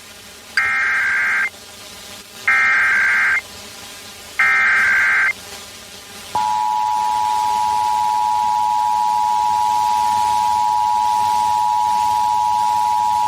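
Emergency Alert System SAME header: three short bursts of shrill data tones, each about a second long and about two seconds apart. About six seconds in, the steady two-tone EAS attention signal starts and holds, opening a Required Monthly Test alert.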